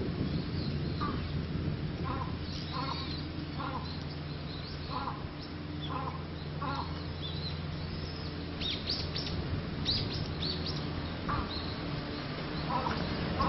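Birds calling in woodland: a string of short calls repeated every half second or so, then a cluster of high, thin chirps about nine seconds in. A steady low hum runs underneath.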